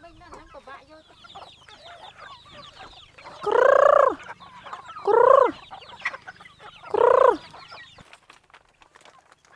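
A flock of domestic chickens clucking and chirping, with three loud drawn-out calls about a second and a half apart near the middle.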